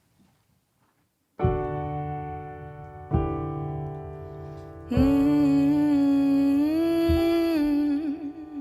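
Keyboard intro to a song. After a second and a half of quiet, two chords are struck about a second and a half apart and left to ring. A fuller, louder chord follows about five seconds in, with a long held note that steps up in pitch near the end.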